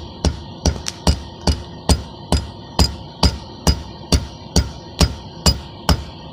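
Hand hammer striking a red-hot steel bar on a flat steel plate used as an anvil, steady forging blows at about two and a half a second, each with a short metallic ring.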